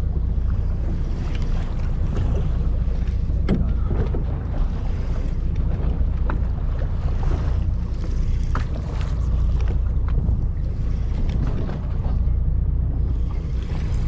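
Steady low drone of the fishing boat's engine running at idle, with wind and sea noise and a few scattered light clicks.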